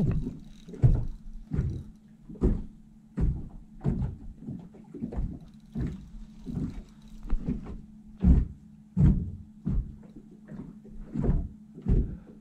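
Spinning reel's drag slipping in short irregular bursts, one or two a second, as a large blue catfish pulls line against a heavily bent rod. A steady low hum runs underneath.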